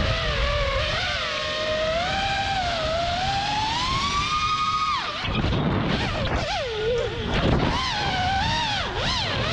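Electric motors and 5-inch props of an FPV freestyle quadcopter (Lumenier 2206 2450kv motors) whining. The pitch climbs steadily for about five seconds, then drops sharply with a rush of wind noise as the throttle is cut. Quick rises and falls in pitch follow as the throttle is punched and chopped through tricks.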